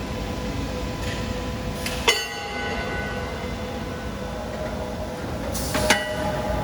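Automated conveyor-roller production machinery running with a steady rumble. Two sharp metal clanks, about two and six seconds in, each leave a short metallic ring.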